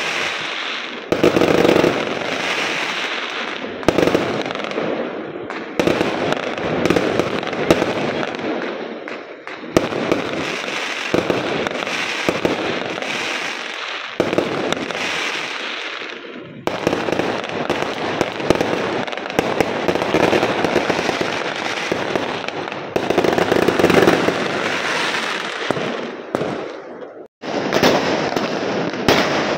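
Aerial fireworks going off in quick succession: repeated sharp bangs over continuous dense crackling. The sound drops out briefly near the end.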